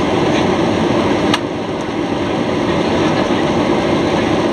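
Steady cabin noise of a Boeing 737-800 in flight, the CFM56-7B engines and the airflow making an even rushing sound inside the cabin. A single sharp click comes about a second in, after which the noise is slightly quieter for a moment.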